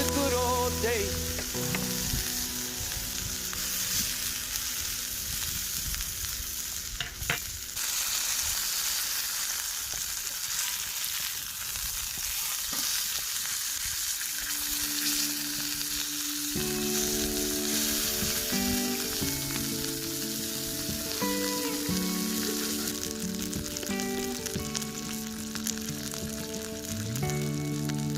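Food frying in a hot pan, a steady sizzling hiss with one sharp knock about seven seconds in. Instrumental background music comes in about halfway.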